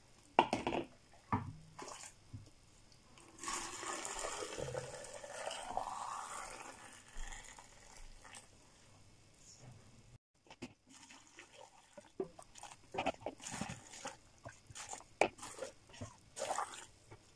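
Boiling water poured through a plastic funnel into a glass jar of cucumbers, its pitch rising steadily over several seconds as the jar fills. Short knocks and clinks come before and after as the funnel is lifted and set on the next jar.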